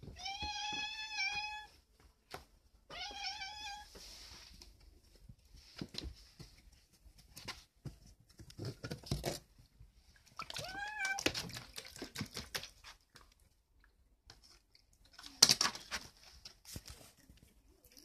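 Young cat meowing three times: once right away, again about three seconds in and once more about ten seconds in. Between the meows come scattered light clicks and rattles as the cat works at a plastic food container of small fish, with one sharp knock about fifteen seconds in.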